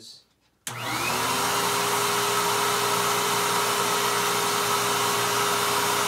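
Royal upright vacuum cleaner, a rebadged Hoover Tempo, switched on about half a second in: the motor spins up quickly and then runs steadily, a constant whine over rushing air as it pulls air through an airflow test box.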